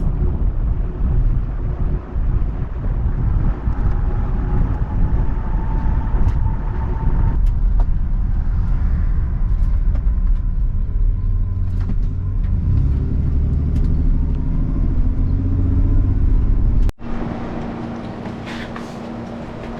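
Road and engine rumble heard from inside a moving vehicle, loud and steady. About 17 seconds in it cuts off abruptly to a much quieter steady hum.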